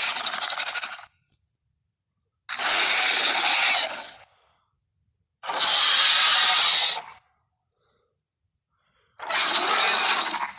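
Deinonychus dinosaur sound effects used as a monster's voice: four harsh, raspy creature hisses, each a second or so long, with silent gaps between them.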